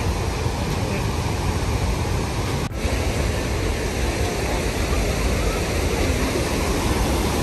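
Steady rush of Athabasca Falls, a large waterfall, heard close up, with a brief break a little under three seconds in.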